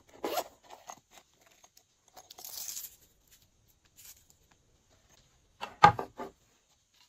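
Slime and plastic piping bags being handled at close range: a few short crackly noises, a soft rustle in the middle, and a quick cluster of sharp clicks and cracks near the end, the loudest.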